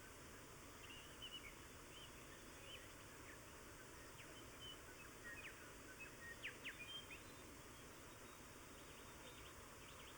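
Faint birdsong: scattered short chirps and whistles over a steady hiss, with a quick cluster of sharp notes around the middle.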